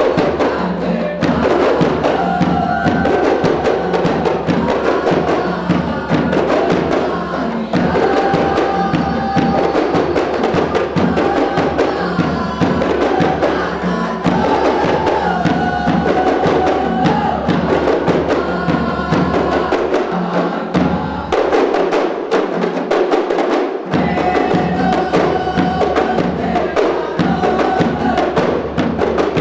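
Music with busy, fast drum percussion under a melody line. The low drums drop out for a few seconds about three quarters of the way through.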